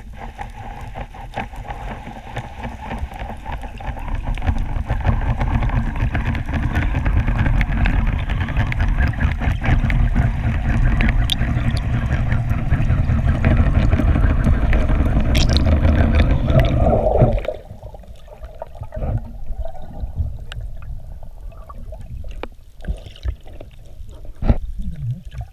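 Loud underwater rushing of water around the camera housing as the spearfisher swims upward. It builds over the first few seconds, holds, then stops suddenly about two-thirds of the way through, leaving faint water sounds and a few small clicks.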